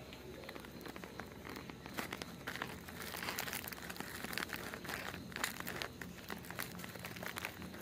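Irregular light clicks and a crinkly rustling, with the rustle strongest in the middle.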